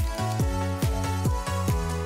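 Background electronic dance music with a steady kick drum, a little over two beats a second, under sustained synth chords.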